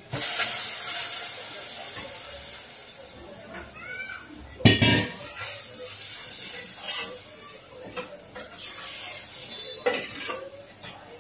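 Milk poured into a steel pan of ghee-roasted vermicelli sizzles and hisses loudly at first, dying away over a couple of seconds. A steel pot is set down with a sharp clank a little under halfway through. A spoon then clinks and scrapes in the pan as the vermicelli is stirred in the milk.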